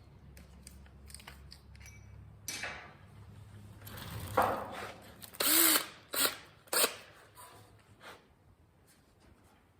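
Power drill run in a few short bursts, with knocks from handling tools and the steel tailgate, clustered about four to seven seconds in over a faint steady hum.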